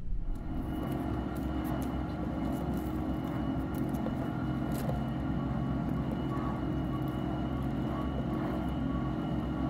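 Steady drone of a ferry's engines and machinery, with many held tones from a low hum up to a faint high whine, and a few light rustles of paper being folded.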